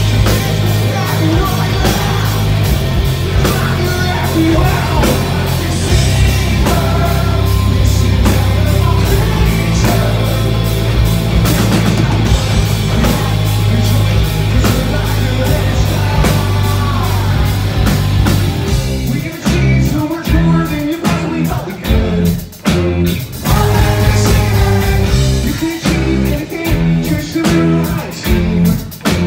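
Live rock band playing loudly: electric guitar, bass guitar and drum kit together. About two-thirds of the way through, the full sound breaks into stop-start staccato hits with short gaps between them.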